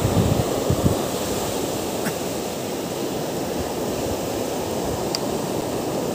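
Small ocean waves breaking and washing up a sandy beach, a steady surf hiss, with wind buffeting the microphone in low gusts during the first second.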